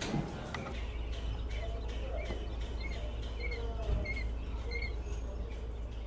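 Quail chicks peeping, short high chirps repeating about twice a second, over a low steady hum.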